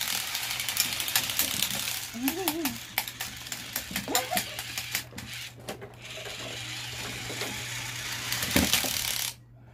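Remote-controlled toy boxing robots whirring as their electric motors drive the punching arms, with rapid clicking of plastic gears and hits. The whirring cuts off suddenly near the end.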